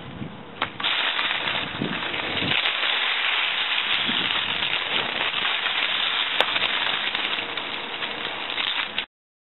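Homemade K'nex lawn mower with a small mains electric motor running, its spinning cutter making a dense crackling rattle with scattered clicks, as if chopping through grass. The sound cuts off suddenly near the end.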